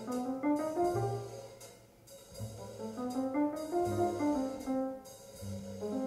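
Instrumental music played back through a hi-fi system, a Yamaha A-S3200 amplifier driving stand-mounted loudspeakers, heard in the room: a melody of clear notes over a deeper bass line. It eases off briefly about two seconds in and again near the end.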